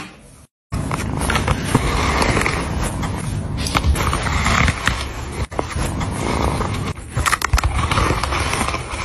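Plastic bristles of a corner-mounted cat self-groomer brush scraping as a kitten rubs its face against it, in slow repeated strokes.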